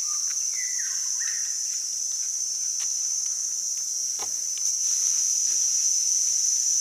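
Steady high-pitched drone of a forest insect chorus, with a short gliding call about a second in and a few faint clicks, one heavier knock about four seconds in. The drone grows a little louder near the end.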